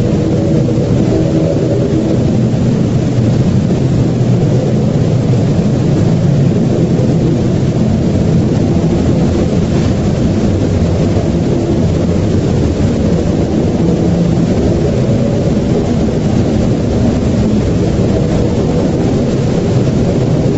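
A loud, steady low rumble with a faint drone held in it, unchanging throughout.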